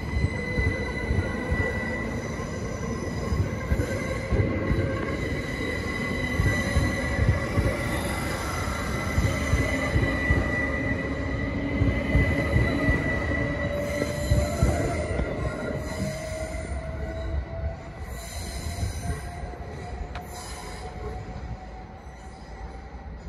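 Great Western Railway Class 387 electric multiple unit pulling away past the platform. Its motor whine rises slowly in pitch over a steady high-pitched tone and rumbling wheels with repeated knocks. The sound fades near the end as the train draws off.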